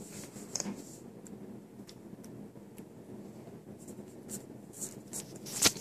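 A small baby spoon scraping and clicking during spoon-feeding: a scattering of short scrapes and ticks, with one louder, sharp click just before the end.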